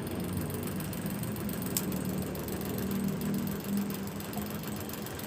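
IBM Selectric III electric typewriter switched on, its motor and drive mechanism running with a steady hum, with a single sharp click a little under two seconds in.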